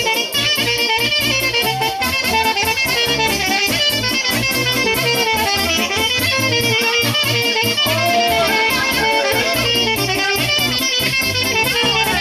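Live Romanian folk dance music, an instrumental break between sung verses: a saxophone plays a fast, ornamented melody over a steady bass and a regular beat.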